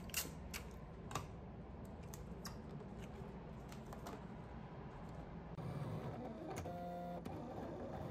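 Light clicks and taps as a tape dispenser and a cutting mat are handled. About two-thirds of the way through comes a brief steady motor whir from an electronic craft cutting machine as it draws the mat in.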